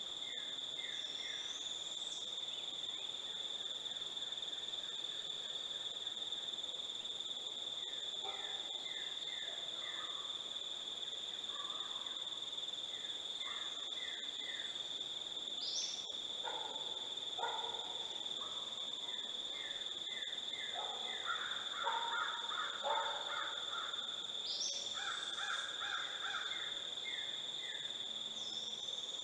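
Birds calling in short repeated series of notes, with a louder cluster of harsher calls about three-quarters of the way through, over a steady high-pitched insect drone.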